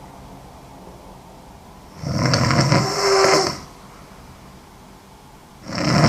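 A woman snoring in her sleep: one long snore about two seconds in, and a second one starting near the end, with quieter breathing between.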